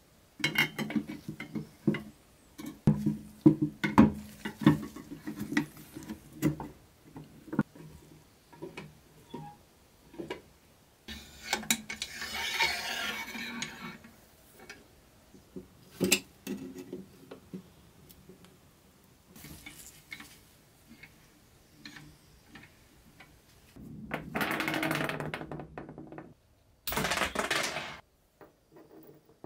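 Light clinks and knocks of a Tonka toy truck's powder-coated pressed-steel dump bed and tailgate being handled and fitted together, the thin sheet metal ringing briefly after each tap. A few seconds of scraping come about midway, and two longer bursts of scraping noise come near the end.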